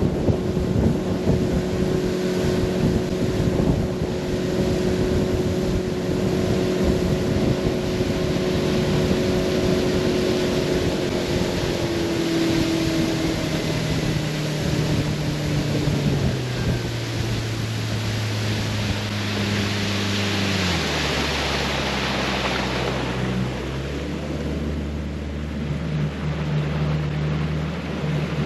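Fishing boat's motor running under way with wind and water noise, then throttled back in several steps over the second half, its pitch dropping each time.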